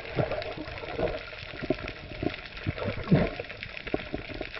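Water sloshing and gurgling around a spearfisherman in the sea, with irregular short low knocks and bubbling.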